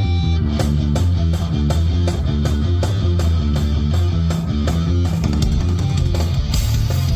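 A rock power trio playing live: a distorted electric guitar riff over bass and drums with a steady beat, and cymbals crashing near the end.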